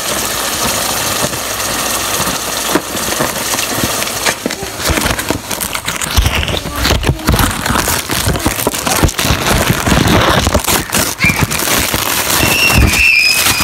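Ground beef sizzling and crackling in a frying pan, with bumps and rubbing from the phone being handled close to the microphone from about halfway in. A short high-pitched squeal near the end.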